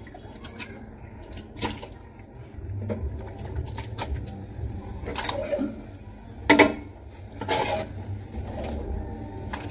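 Scattered knocks and clatters of things being handled, the loudest about six and a half seconds in, over a low steady rumble.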